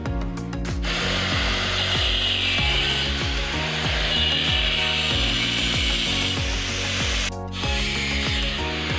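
Handheld angle grinder with a cutoff wheel cutting steel clamped in a bench vise, a steady high grinding hiss that starts about a second in and briefly lets up about seven seconds in.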